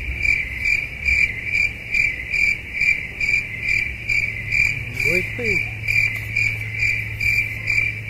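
Steady high-pitched chirping, about three chirps a second, over a low hum; it stops abruptly.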